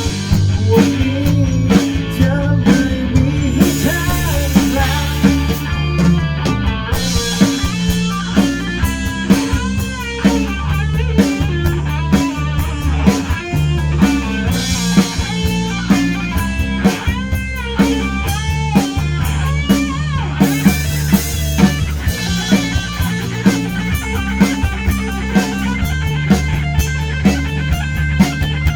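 Rock band playing live: drum kit keeping a steady beat under bass and electric guitar, with a bending lead line over them in the middle.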